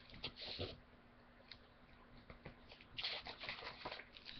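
Faint rustling and handling noises close to the microphone: a few short scratchy bursts near the start and a denser cluster about three seconds in.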